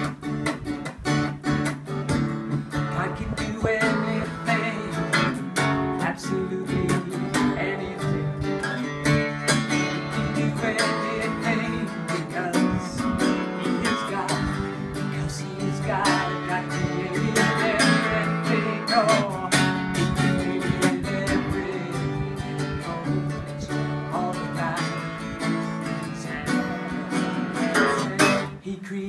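Acoustic guitar music, strummed.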